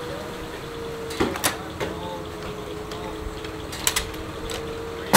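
Antique sawmill: a steady hum from the running mill, with metal clanks and knocks as the log carriage's setworks and dogs are worked. A cluster of clanks comes about a second and a half in, another near four seconds, and the loudest right at the end.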